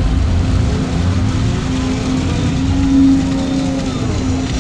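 Volvo EC220 excavator's diesel engine and hydraulics running under load, heard from inside the cab, as the bucket lifts a load of wet sand out of the water and swings. A steady drone that swells briefly about three seconds in.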